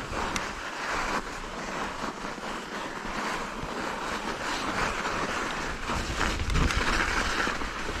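Rushing wind on the camera microphone and mountain bike tyres rolling over a snowy trail during a fast descent, with short rattles and knocks from the bike over bumps. A heavier low rumble comes about six and a half seconds in.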